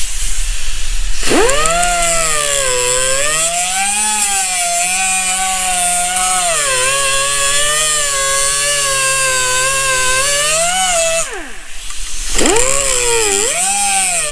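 A high-speed rotary cutting tool cuts off the ABS sensor cover on a new wheel bearing hub. After a short hiss it spins up with a rising whine, and the pitch sags and wavers under load for about ten seconds. It winds down, then makes a second, shorter cut near the end.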